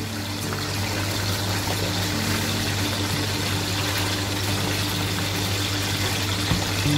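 Raw potato fries frying in hot oil in an iron wok: a steady bubbling sizzle, with a steady low hum underneath.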